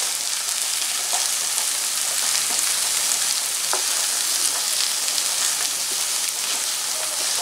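Lamb brain pieces frying in oil with onion masala in a pan: a steady sizzling hiss. A spatula stirs and turns the pieces, with a few light taps against the pan.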